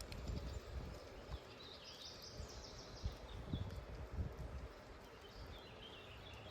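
Quiet outdoor ambience: a low, uneven rumble with a bird chirping in short high phrases, about two seconds in and again near the end.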